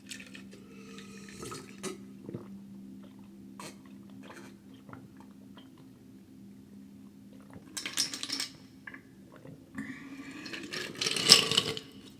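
Mouth and eating sounds close to the microphone: small wet clicks and smacking, with two louder, longer wet bursts about eight and eleven seconds in, over a faint steady hum.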